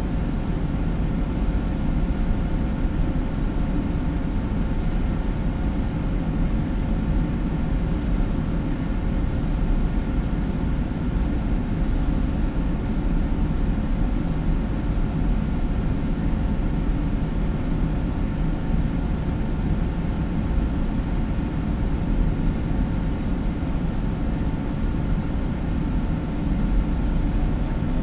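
Steady low rumble and hum of a large enclosed hall, with a few faint steady tones above it and no distinct events.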